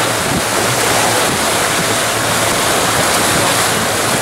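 Loud, steady rush of a boat's churning wake water while it runs at speed, with the low drone of its engine underneath.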